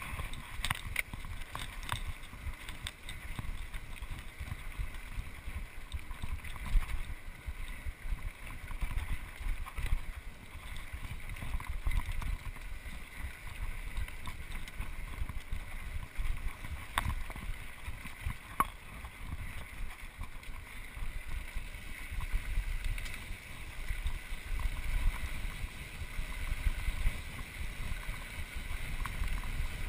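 Mountain bike riding fast down a dirt singletrack: wind buffeting the microphone as a steady low rumble, with tyre noise on the dirt and a few sharp knocks from the bike over bumps.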